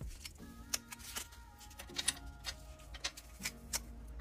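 Small plastic clicks and taps, irregular and a second or so apart, as seven-segment LED display modules are handled and the pink foam is pulled off their pins, over soft background music.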